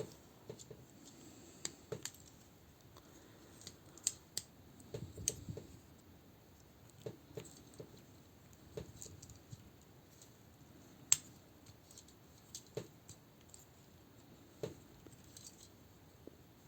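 Plastic action-figure parts being handled and folded into place: scattered faint clicks and light knocks, with one sharper click about eleven seconds in.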